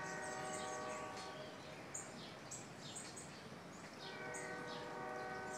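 Small birds chirping outdoors, with many short, quick falling calls over faint background noise. A steady chord of held tones sounds at the start, fades out about a second in, and returns about four seconds in.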